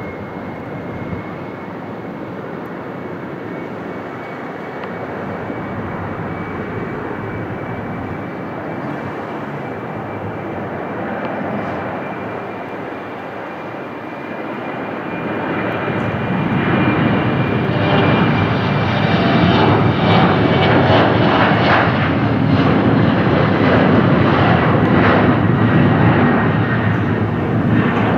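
Embraer 190's twin General Electric CF34-10E turbofans at takeoff power during the takeoff roll: a steady jet noise with a high whine. The sound grows much louder about halfway through as the jet draws level, and the whine drops a little in pitch near the end as it lifts off.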